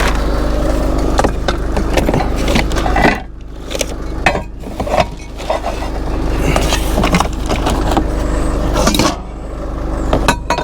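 Scrap being handled and rummaged through in a kerbside junk pile: irregular knocks, clatters and scrapes of metal and plastic. A steady low engine hum runs underneath.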